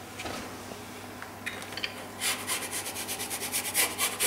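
A metal pizza peel scraping in a fast run of short strokes, about eight a second, as it is jerked back and forth to slide a pizza off into an oven. The scraping starts about two seconds in.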